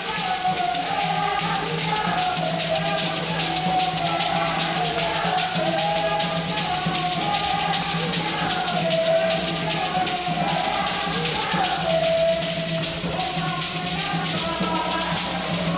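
Bini traditional music: beaded gourd rattles shaken in a steady, fast rhythm, with voices singing a wavering melody over them.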